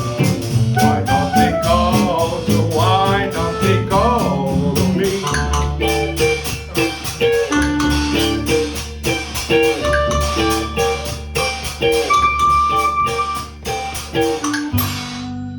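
Acoustic swing band of guitar, clarinet, washboard and double bass playing the closing bars of a song over a steady strummed beat, ending on a final held chord near the end.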